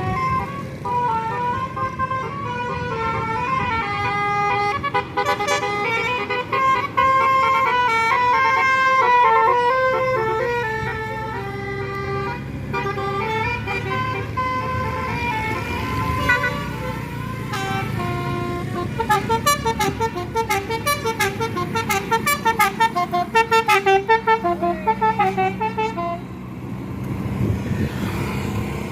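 A tour bus's Basuri telolet horn plays a melody of stepped multi-tone notes over the bus engine's low running. Near the end the melody turns into a quick run of short staccato toots, then stops, leaving the engine.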